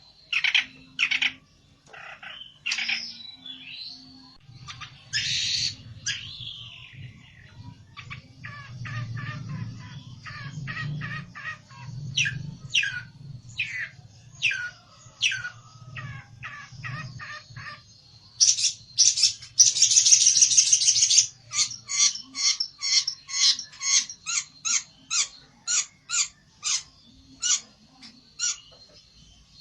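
A pelentet songbird singing hard: fast runs of sharp chirps and sweeping calls, a harsh scratchy burst about two thirds of the way through, then a quick even string of short calls about three a second. This is the agitated, rival-challenging song of a fired-up bird.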